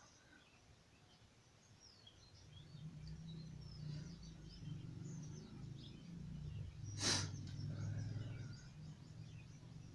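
Small birds chirping faintly in the background. A low hum comes in after a couple of seconds. About seven seconds in, the man swallowing the cloth strip lets out one short forceful exhalation.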